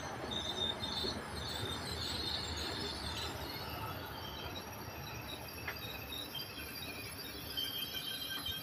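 SNCF AGC regional multiple unit pulling away from a station, a steady rolling rumble with intermittent high-pitched wheel squeal.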